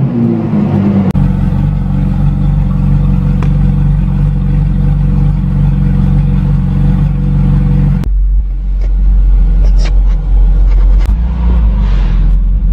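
Ferrari 458 Italia's 4.5-litre V8 running at idle. In the first second the revs drop from a higher pitch and settle into a steady idle. About eight seconds in, the sound changes abruptly to a deeper, bassier idle.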